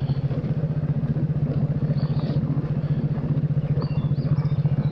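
Vespa LXV 150 scooter's single-cylinder four-stroke engine running steadily at low speed, an even low pulse, as the scooter rolls slowly along a rough path.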